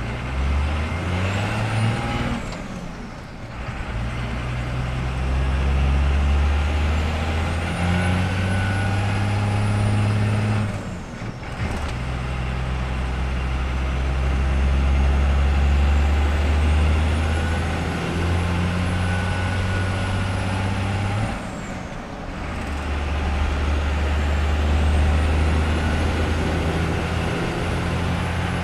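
12-valve Cummins 5.9 L inline-six diesel pulling hard at full throttle through the gears, heard from inside the truck's cab. The sound breaks briefly at three gear changes, and in each gear the engine note climbs while a high turbo whistle rises and levels off.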